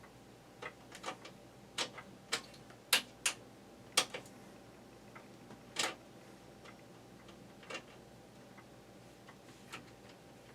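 Screwdriver working a screw out of a box fan's plastic rear cover: a string of sharp, uneven clicks and taps, bunched in the first four seconds and sparser after that.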